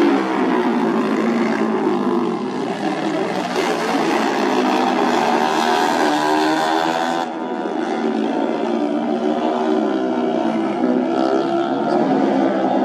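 Several single-cylinder supermoto race motorcycles running on a warm-up lap, their engines revving up and down as they pass, with the pitch rising and falling. The sound changes abruptly about seven seconds in.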